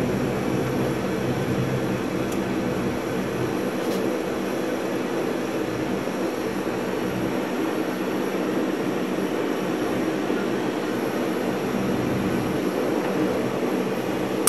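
Lockheed L-188 Electra's four Allison 501 turboprop engines running steadily on the ground, heard from inside the cockpit as an even drone with a steady low hum.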